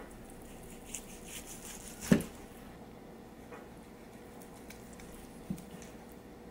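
Chef's knife slicing through boiled pork belly on a plastic cutting board: soft, squishy cutting sounds, with the blade knocking on the board once sharply about two seconds in and again, more softly, near the end.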